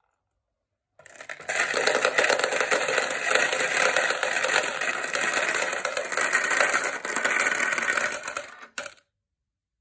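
Dense, continuous clatter of dozens of glass marbles swirling around a plastic funnel bowl as a hand stirs them, dropping through its centre into a jar below. It starts about a second in and stops suddenly near the end.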